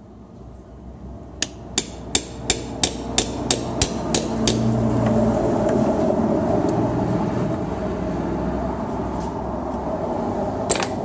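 A hammer taps a pointed homemade steel pick into the rim of an old crankshaft rear main seal, to pierce it so the seal can be levered out. There are about ten quick light metallic blows at roughly three a second, then a few more taps near the end. Behind them a steady mechanical hum builds up and holds.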